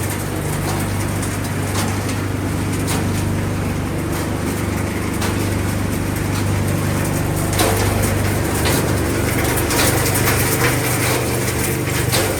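Recycling-line machinery for shredding and crushing refrigerators and appliances, running steadily: a constant motor drone with scattered clanks and knocks of material being processed.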